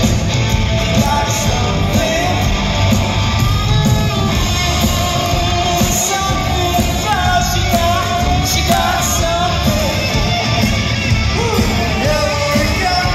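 Live rock band playing loud: a drum kit with crashing cymbals and electric guitar, with a lead voice singing over them. It is heard from within the crowd.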